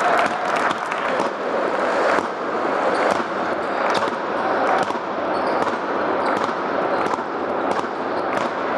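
Basketball being dribbled on a hardwood court, with sharp bounces about once a second over the steady murmur of a crowd in an arena.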